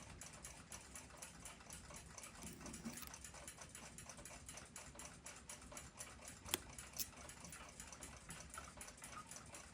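Faint, rapid, even ticking of a running clock escapement, with two sharper metallic clicks a little past the middle.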